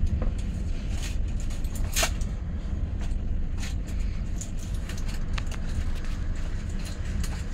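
Passenger train running: a steady low rumble with occasional sharp clacks, the loudest about two seconds in.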